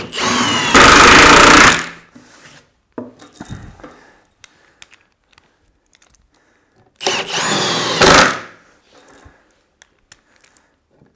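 Cordless impact driver driving coach bolts into a timber workbench frame through a socket, twice: each time the motor runs up with a rising whine, then the tool hammers loudly for about a second as the bolt seats. Light knocks of handling come between the two.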